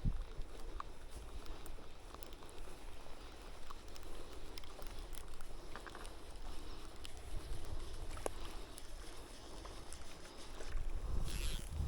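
Steady wash of river water with a few small clicks, and a low rumble of wind on the microphone at the very start and again near the end.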